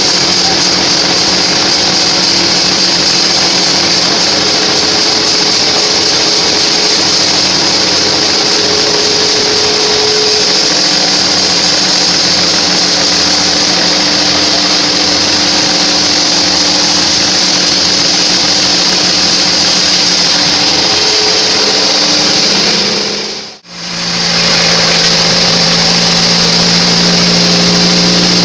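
Homemade sawmill bandsaw running steadily as it saws a trembesi log, a loud even mechanical whine with a steady high hiss. It cuts out for a split second near the end, then resumes with a deeper hum.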